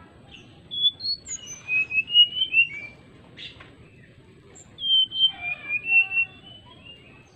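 Brown-chested jungle flycatcher singing two fluting phrases of clear whistled notes, each about two seconds long, about two seconds apart.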